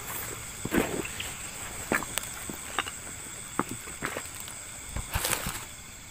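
Footsteps and rustling through leaves and brush while clambering down a slope: scattered snaps and crackles, with a louder brushing rush about five seconds in. Insects chirr steadily at a high pitch underneath.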